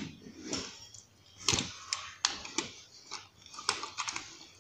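Gear being packed into a fabric backpack: a string of irregular light clicks and knocks with fabric rustling as items are handled and put inside.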